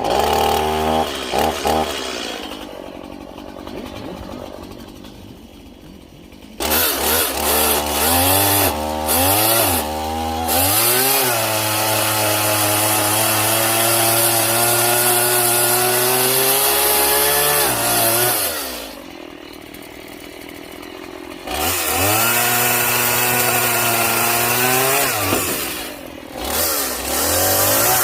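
Stihl MS 170 two-stroke chainsaw with a semi-chisel chain, cutting small logs. It idles for a few seconds, is blipped up, then held at high revs for several seconds with the pitch sagging under load. It drops back to idle, revs up again, dips briefly and climbs near the end.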